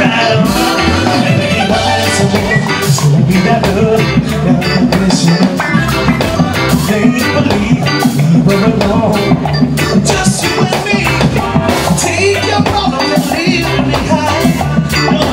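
Live reggae band playing loud, with a drum kit and electric guitars over a steady beat and bass.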